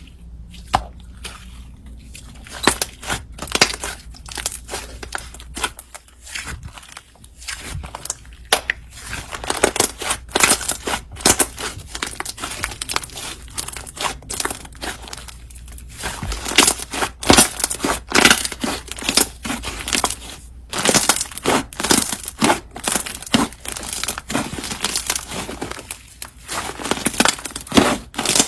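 Slime being mixed with clay by hand, making rapid, dense crackling and clicking pops that grow louder and busier about halfway through.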